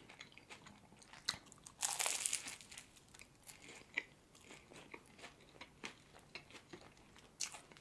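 A bite into flaky puff pastry soaked in maple syrup with pecans, crunching about two seconds in, followed by faint chewing with soft mouth clicks.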